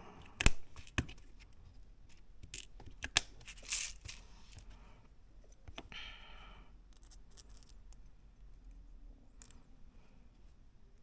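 Small Mini 4WD kit parts being handled and fitted by hand: a few sharp clicks and taps over the first four seconds, the loudest about half a second in, then a short scraping rustle around six seconds.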